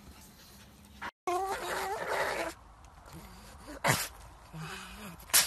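A pug's short wavering whimper, then two short, sharp sneezes about a second and a half apart, the second the louder.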